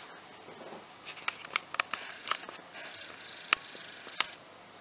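Several small clicks and taps, then a faint high whirr for about a second and a half, the camera's zoom motor as the shot closes in, with two sharp clicks during it.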